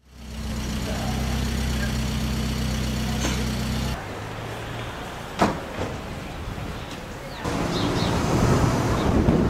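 A steady low mechanical hum that stops about four seconds in, a single sharp click a little later, and louder rushing noise near the end.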